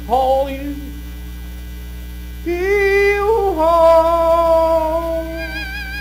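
Cantonese opera music over a steady electrical mains hum from the stage sound system. A short rising note sounds at the start and the hum is heard alone for a moment. From about two and a half seconds, long held melodic notes slide from one pitch to another and waver near the end.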